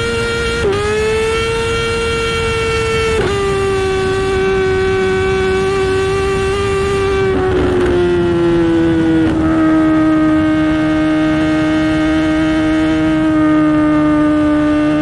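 Kawasaki ZX-10R inline-four running through an SC-Project exhaust, held at high, nearly steady revs. The pitch dips briefly about a second in and again about three seconds in, then eases down to a lower steady note around halfway.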